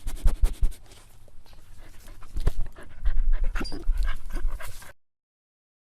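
Dog panting hard and close to the microphone, with a few short, high whines between about three and four and a half seconds in: a sad, hungry dog begging for food. The sound cuts off suddenly about five seconds in.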